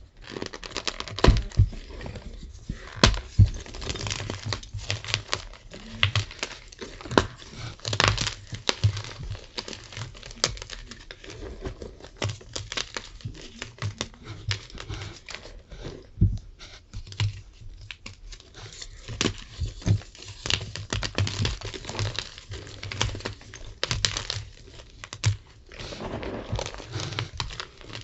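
Blocks of gym chalk being crushed and crumbled close to the microphone: a continuous run of irregular dry crunches and crackles.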